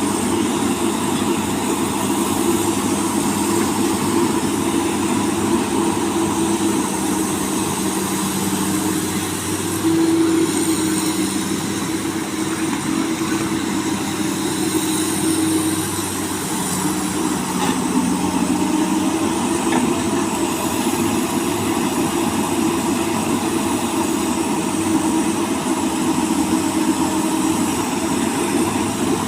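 Komatsu PC200 excavator's diesel engine running steadily while digging sand. Its note shifts in the middle, a brief louder surge and then a dip and rise in pitch as the load changes.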